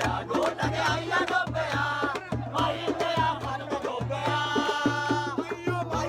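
Background music: a song with a steady drum beat, bass and a singing voice, with a held chord for about a second near the end.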